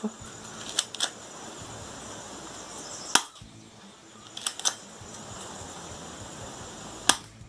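Cheap spring-powered airsoft pistol being cocked and fired: sharp clicks and snaps, a pair about a second in, a single louder one about three seconds in, another pair a second and a half later, and one more near the end.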